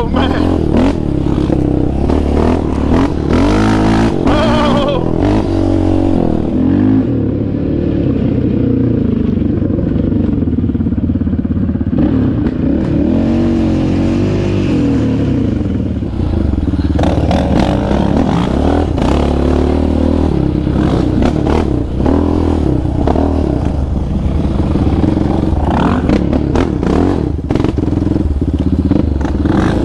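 Sport quad engine being ridden hard on a dirt trail, revving up and down again and again with the throttle, with rattles and knocks from the quad over rough ground. The high end goes muffled for about ten seconds in the middle, then comes back.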